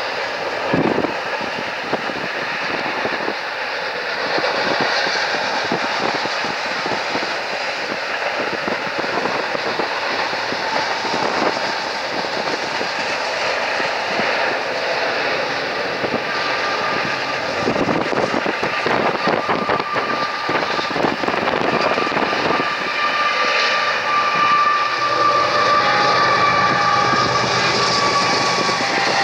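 Union Pacific double-stack intermodal freight train rolling steadily past: a continuous rumble and rattle of the well cars on the rails, with runs of wheel clicks over the rail joints. Near the end, steady high squealing tones rise above the noise.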